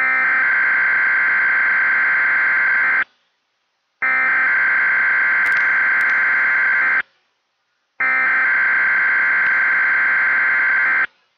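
Weatheradio Canada's SAME alert header: three bursts of buzzing digital data tones, each about three seconds long with a second of silence between them. It is the coded signal that switches on alert-equipped weather radios, sent here for the monthly test.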